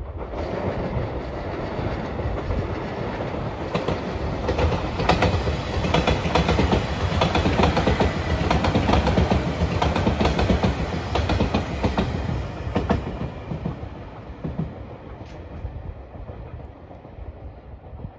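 JR Shikoku 8000 series electric limited express passing at speed: a steady rumble with a rapid run of wheel clicks over the rail joints. It is loudest through the middle and fades away as the train recedes near the end.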